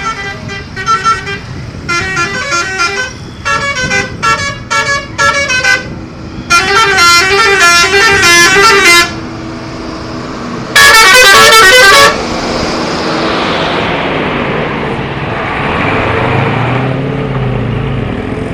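Bus telolet horn, a multi-tone musical air horn, playing a string of short tooting phrases, then a longer melody, then its loudest blast about eleven seconds in. After that the horn stops and the bus's engine and road noise carry on.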